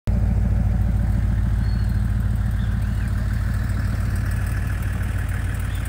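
Pickup truck engine idling steadily, with a fast, even low pulse.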